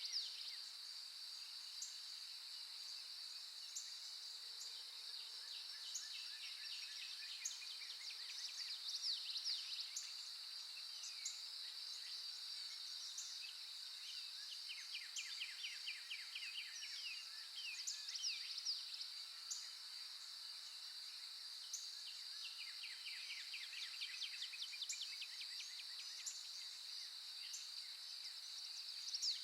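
Nature recording of songbirds singing in repeated rapid chirping trills, several bouts over the stretch, over a steady high-pitched insect drone.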